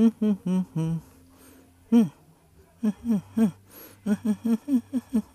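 Speech: a voice talking in short, quick syllables with a brief pause about a second in.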